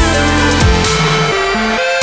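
Electronic background music with deep bass notes that slide down in pitch every half second or so, under held synth notes.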